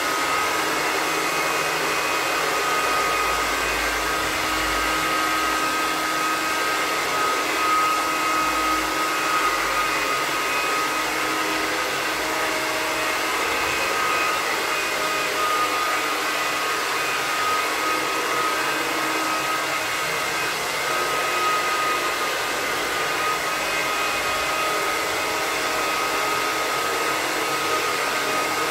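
Handheld electric hot-air blower (soprador) running steadily on its cold-air setting, a broad rushing hiss with a high motor whine, blowing across a wet liquid floor coating to drag the pigment.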